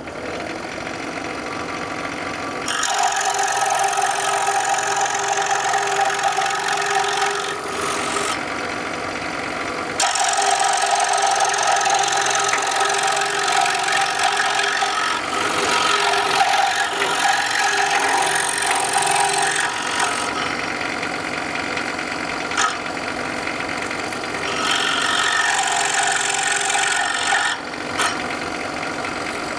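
Scroll saw running, its reciprocating blade cutting a narrow slot in a thin wooden blank: a steady rasping buzz, louder in long stretches while the blade is in the cut, dropping back briefly around 8 and 20 seconds in.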